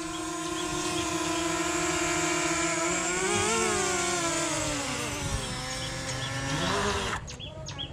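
Mini quadcopter drone's propellers whining in a low hover, a steady multi-toned buzz. About three seconds in the pitch wavers and dips as the drone is caught by hand, and about seven seconds in the motors stop and the whine cuts off.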